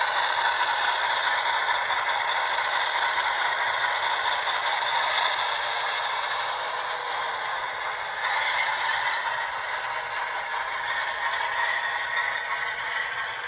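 HO scale Delaware & Hudson Alco PA model diesel running along layout track: a steady scraping, rattling clatter of its wheels and drive, with its onboard sound system's diesel engine sound mixed in, growing fainter toward the end as it moves away.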